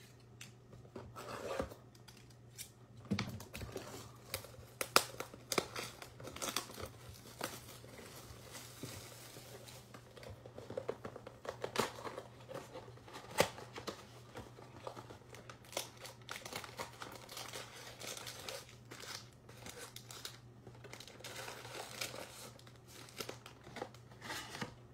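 Panini Contenders trading-card mega box being opened by hand: plastic wrapping crinkling and tearing and cardboard rustling, in many irregular small crackles and rips. A steady low hum runs underneath.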